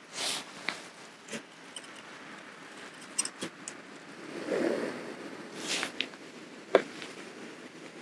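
Cooking gear being handled as a 350 ml metal Sierra cup of rice is set up: scattered light clicks, knocks and rustles, with a louder patch of noise about halfway through.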